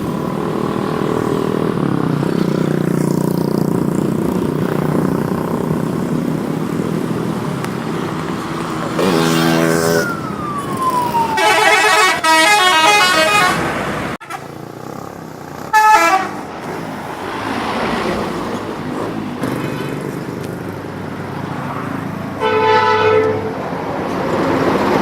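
Bus 'telolet' musical air horns blowing quick multi-note tunes in several bursts over a steady engine and traffic rumble. One burst has a falling tone glide leading into a rapid warbling run of notes. The sound cuts off abruptly about halfway, and shorter horn bursts follow.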